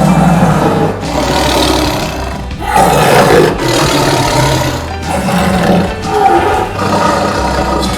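Tiger roaring repeatedly, the loudest roar about three seconds in, over background music.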